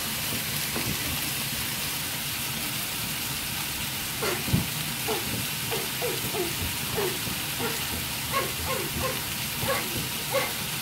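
Beef steaks sizzling in hot oil in cast-iron sizzling plates, butter melting on top: a steady frying hiss, with a run of short sharper sounds over it from about four seconds in.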